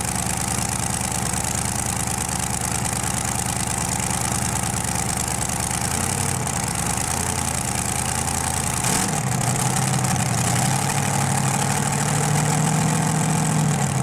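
Multi-engine modified pulling tractor's engines idling steadily after the pull. About nine seconds in, the engine note shifts, climbing slightly and getting a little louder.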